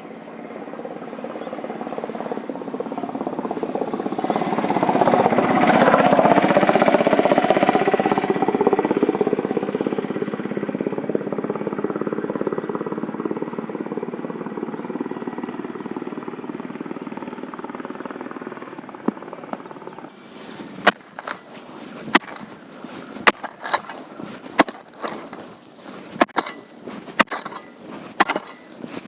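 A motor vehicle's engine passing by, swelling to a peak and then fading away over about twenty seconds. Then come sharp strikes roughly once a second as a digging tool chops into hard clay soil.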